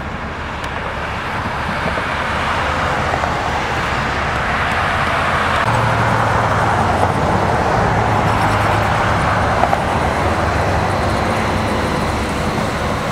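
Highway traffic noise, a steady rush of passing vehicles that swells in the middle and eases off, with a low engine hum joining about six seconds in.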